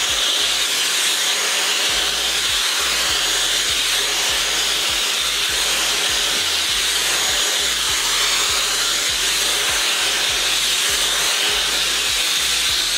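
Dyson Supersonic hair dryer running steadily while being worked through a section of hair: a loud, even rush of air.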